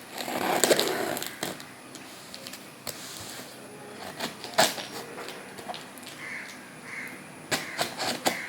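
A makeup box being opened by hand: rustling and tearing of packaging in the first second or so, then scattered sharp clicks and knocks as it is handled, the sharpest about halfway through and a quick cluster near the end.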